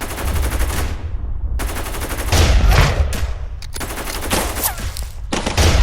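Battle gunfire: rapid machine-gun bursts mixed with rifle shots over a low rumble, continuous and loud.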